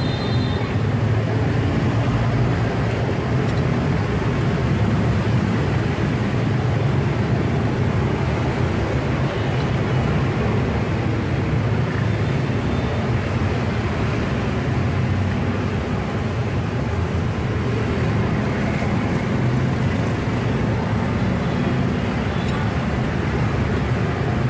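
Steady street traffic noise, an even rumble with no distinct events.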